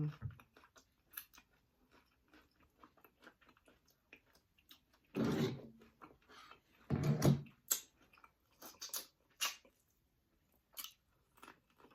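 Close-miked eating of a spicy seafood boil: wet chewing and lip-smacking clicks, with two louder low, voiced sounds, one about five seconds in and one about seven seconds in.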